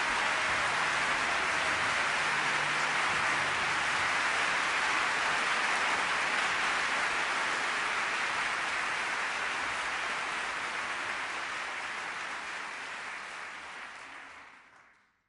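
Theatre audience applauding: dense, steady clapping that slowly dies away over the last few seconds and then fades out.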